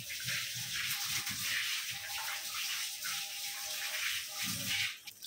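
Water running steadily from a kitchen tap, shut off abruptly about five seconds in.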